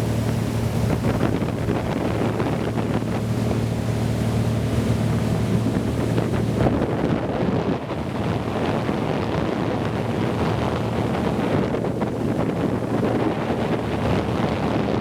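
Wind buffeting the microphone, with a steady low engine hum underneath that stops about six and a half seconds in.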